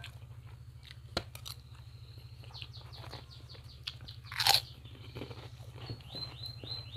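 A crisp Indonesian cracker (kerupuk) bitten with a loud crunch about four and a half seconds in, amid softer chewing. There is a sharp click about a second in, and quick runs of high falling chirps midway and near the end, over a steady low hum.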